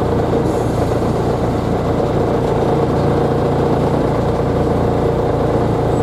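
Engine of the Ogoya Railway KiHa 1 railcar running steadily as the narrow-gauge train rolls slowly into its stop, heard from inside the wooden car.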